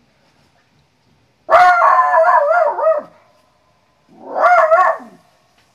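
A dog gives two loud calls with a pitch that wavers up and down, the first about a second and a half long, the second about a second long.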